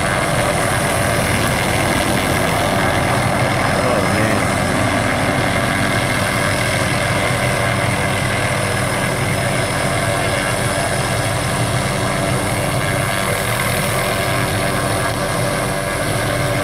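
Light helicopter hovering low overhead, its engine and rotor running steadily and loud without a break.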